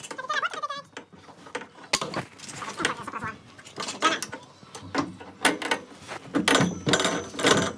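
Irregular metal clanks and sharp knocks as the steel tubes of a basketball hoop frame are handled and fitted together.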